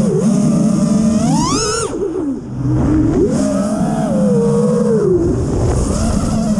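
FPV quadcopter's electric motors whining, the pitch rising and falling with the throttle. A sharp climb in pitch comes just under two seconds in, followed by a brief drop in loudness before the whine climbs again.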